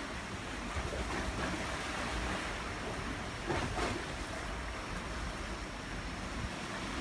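Typhoon wind blowing hard in a continuous roar, with rumbling wind buffeting the microphone; it swells louder for a moment about three and a half seconds in.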